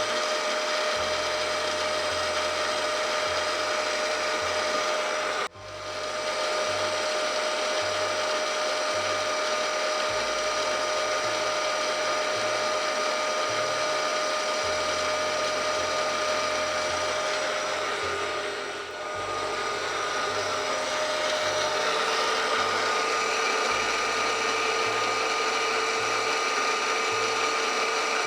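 Milling machine running steadily with a gear whine. The sound drops out briefly about five and a half seconds in and dips again near nineteen seconds, and the whine shifts to a lower pitch a little after twenty-two seconds.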